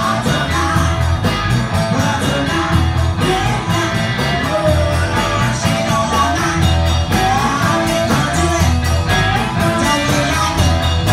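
Live band playing: a woman singing through a microphone over electric guitar and drums with a steady beat.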